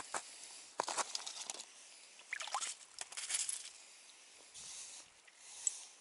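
Irregular bursts of rustling and scraping with a few clicks and slushy splashes as an ice angler lifts a jigging rod and handles the line over a slush-filled ice hole.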